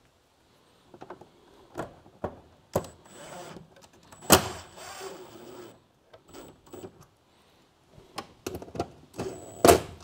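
Cordless impact driver running in a few short bursts, driving screws to fix a plastic glove box into a boat's console, between knocks and clicks of the plastic box and screws being handled. The loudest burst comes near the end.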